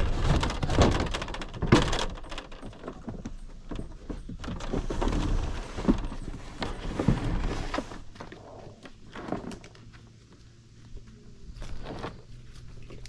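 Irregular knocks and thuds, busiest in the first eight seconds, then quieter, with a faint low steady hum from about eight seconds in.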